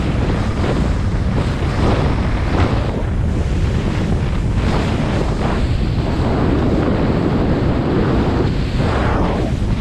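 Yamarin 63 DC motorboat running underway: wind buffets the microphone over a steady, loud rush of water and low rumble, with a few brief louder surges.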